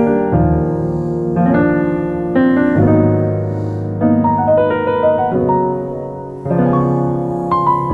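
Background piano music: slow chords and a melody played on a piano or electric piano.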